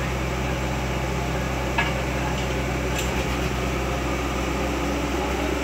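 Caterpillar 120B hydraulic excavator's diesel engine running at a steady hum, with two light clicks about two and three seconds in.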